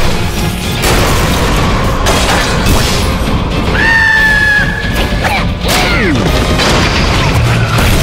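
Cartoon action soundtrack: music with crashing and booming sound effects, a high held squeal about halfway through, then quick sliding-down pitch sounds.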